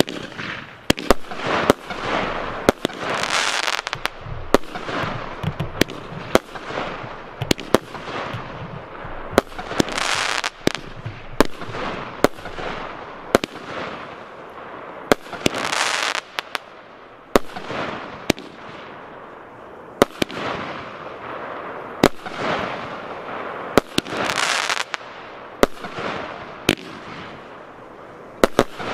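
A 19-shot, 30 mm consumer fireworks battery (cake) firing in sequence: sharp bangs of shells launching and bursting, about once or twice a second, with a hiss that swells and fades between them.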